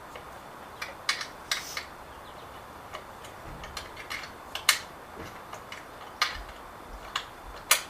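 Irregular sharp clicks and knocks, about a dozen, as a motorcycle seat mounting bracket is worked into place by hand against a bundle of wiring.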